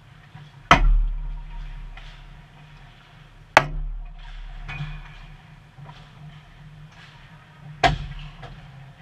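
Three loud bangs of shot hockey pucks striking the boards and glass behind the net, about a second in, midway and near the end, each followed by a low booming ring-out. Fainter stick and skate clicks and a steady arena hum underneath.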